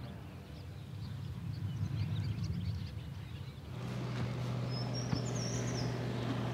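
Small birds chirping over a low rumble; about four seconds in, a tractor engine's steady hum comes in and runs on, with a bird's trill over it.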